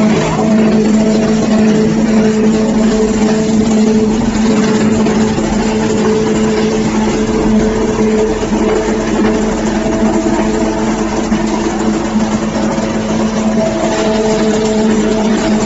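Hay grinding machine running steadily: a constant machine hum over a rush of noise, with no pauses or change in speed.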